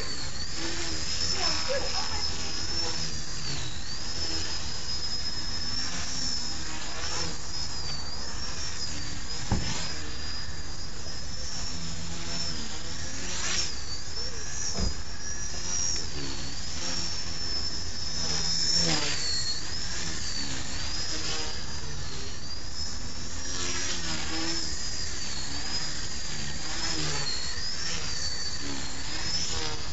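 Blade mCP X micro RC helicopter in flight: its small electric motors and rotors whine high, the pitch wavering up and down with throttle and manoeuvring. Two short knocks come about ten and fifteen seconds in.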